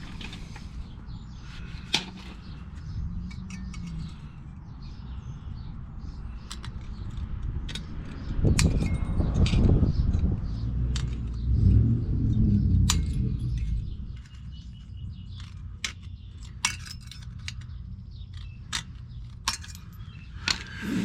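Thin sheet-metal stovepipe tabs being trimmed and handled: sharp metallic clicks and clinks, scattered and irregular. A louder low rumble runs for several seconds in the middle.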